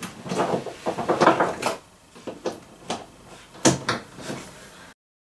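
Irregular knocks and clatter of objects being picked up and set down on a craft desk, busiest in the first two seconds and sparser after; no heat gun is running. The sound cuts off abruptly shortly before the end.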